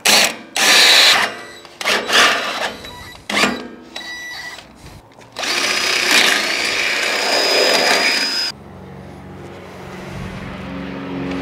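DeWalt cordless drill drilling a pilot hole through a metal bumper mount: several short trigger bursts, then about three seconds of steady drilling with a high whine. Background music comes in near the end.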